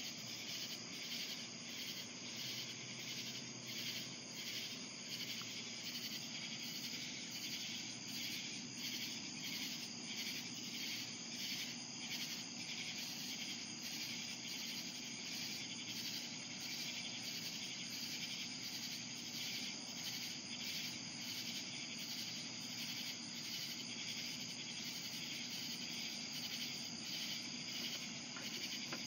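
Crickets chirping in a steady, pulsing night chorus.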